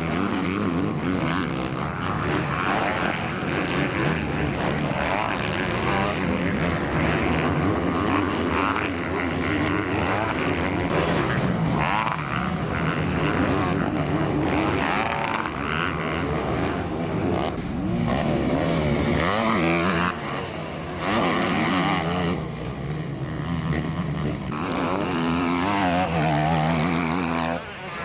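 Several motocross dirt bikes racing, their engines revving up and down and overlapping as they pass, with brief drops in loudness about two-thirds of the way through.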